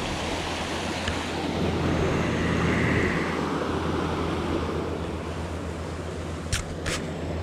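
Fast water rushing over the rocks of a lake spillway: a steady, noisy rush that swells a little a couple of seconds in. Two short, sharp clicks sound near the end.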